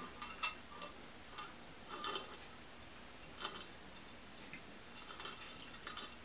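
Light, irregular clicks and taps of a stainless steel pin and mesh sieve being worked into a hole in a ceramic lid.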